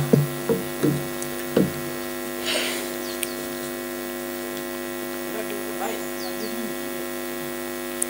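Steady electrical mains hum from a public-address system, with a few soft knocks in the first couple of seconds.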